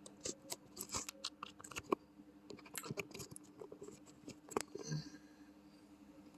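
Microphone being handled and plugged in: a run of irregular clicks, scrapes and rustles over the first five seconds, then only a faint steady hum.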